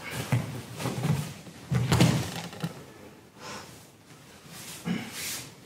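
Grapplers' bodies thudding and scuffing on foam mats, with the loudest thud about two seconds in.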